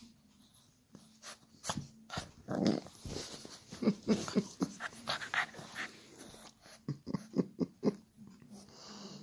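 Two dogs play-fighting, an English bulldog puppy and a small short-haired dog, giving short play growls and grunts. The growls come in quick runs, most through the middle and again near the end.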